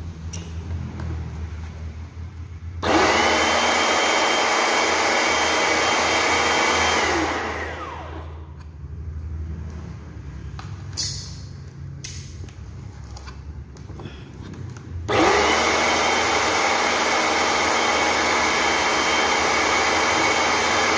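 Laguna 70 electric pressure washer's motor starts with a rising whine about three seconds in, runs steadily for about four seconds and winds down. It starts again about three-quarters of the way through and keeps running.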